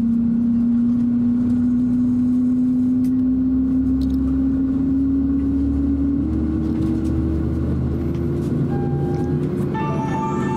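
Cabin noise inside a Boeing 767-300 with its engines running on the ground: a steady, loud drone with a hum that slowly rises in pitch.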